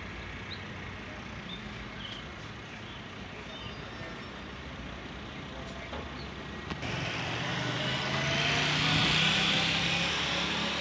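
Traffic noise: a motor vehicle's engine grows louder about seven seconds in, with a low, slightly rising engine note.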